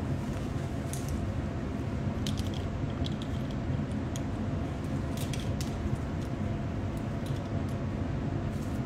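Steady low rumble of room noise, with scattered small clicks and rustles from a few seconds in as sunglasses are handled, lifted off the face and pushed up onto the head.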